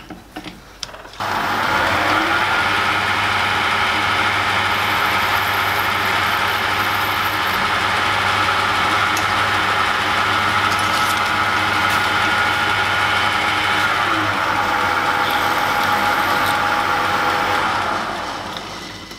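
Small metal lathe switched on about a second in: its motor whines up to speed and runs steadily while spinning a brass workpiece in the chuck. Near the end it is switched off and the whine falls as the spindle coasts to a stop.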